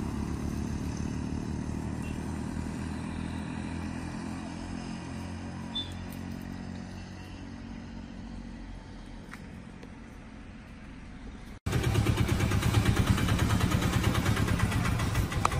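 A motor vehicle engine running with a low, even drone that slowly fades. After a sudden cut about eleven and a half seconds in, a louder engine runs close by with a fast, pulsing beat.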